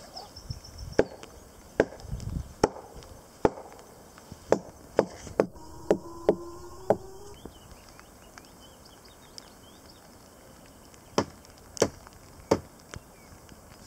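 Sharp wooden knocks as dead Scots pine branches are beaten with a stick over a white sheet to shake insects down: about ten knocks in the first seven seconds, a pause, then four more near the end.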